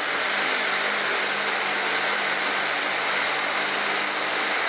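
LG CordZero cordless stick vacuum running on turbo, its powered floor nozzle going over carpet: a steady high-pitched motor whine over the rush of suction air.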